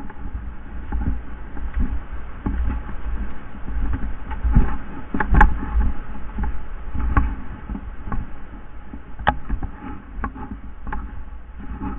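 A player's footsteps through dry leaves, grass and brush, with irregular snaps and gear rustle, and a low rumble from handling and wind on a body-worn camera's microphone. Two sharper snaps stand out, about five and nine seconds in.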